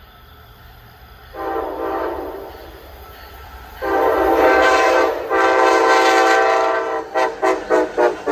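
Amtrak train's Nathan K5LA five-chime air horn sounding: a short blast about a second and a half in, then two long blasts, then five quick short toots near the end. A low rumble runs underneath.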